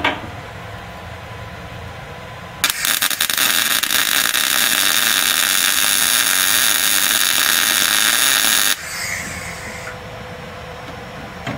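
MIG welder arc crackling steadily for about six seconds as a plug weld is run into sheet steel, starting a few seconds in and cutting off suddenly when the trigger is released.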